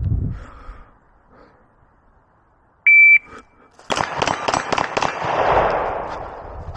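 A shot timer's electronic start beep, then about a second later a fast string of pistol shots from a Beretta, about six or seven a second.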